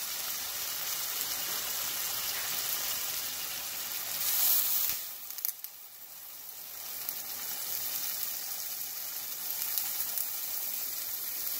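Chopped tomatoes, peppers and onions sizzling in oil in a frying pan. About four seconds in, coconut milk is poured in: the hiss surges briefly, then the sizzle dies down and slowly builds again as the liquid heats.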